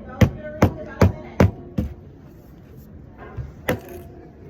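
Five sharp clicks or taps in quick even succession, about two a second, then one more near the end, over faint background voices.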